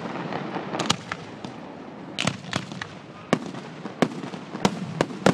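Aerial fireworks display: shells bursting in a string of sharp bangs at irregular intervals, roughly one or two a second.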